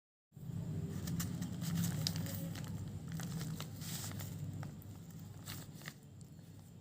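Crinkling and crackling with scattered sharp clicks over a steady low hum, starting suddenly and fading toward the end.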